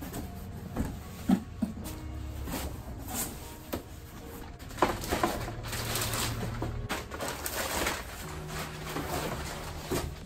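Cardboard box and plastic wrapping handled as an aftermarket front lip is unpacked: scattered knocks and scrapes, then plastic crinkling and rustling from about five to seven seconds in as the lip comes out of its bag. Low steady tones run underneath.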